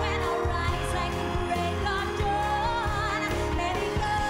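Pop music with a singing voice: held, wavering sung notes over a steady bass.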